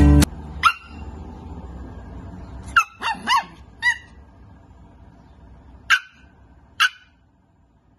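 Shih Tzu puppy barking in short, high-pitched yips, about seven in all at irregular intervals, with the last one near the end.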